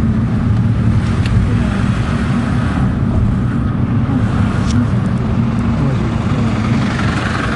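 A car on the move: a steady low rumble of engine and road noise, with a few faint light ticks.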